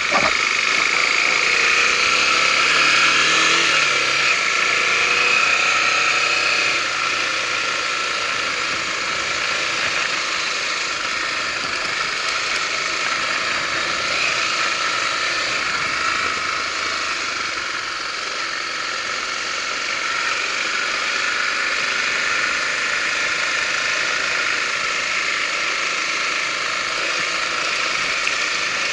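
Honda Tornado 250 motorcycle's single-cylinder four-stroke engine running steadily as the bike is ridden, a little louder for the first several seconds.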